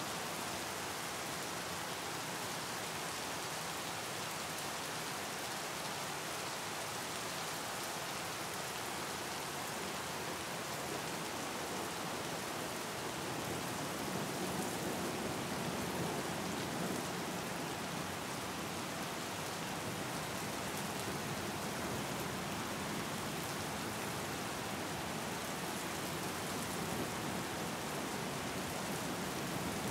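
Steady splashing water: an even, rain-like hiss that goes on without a break or change.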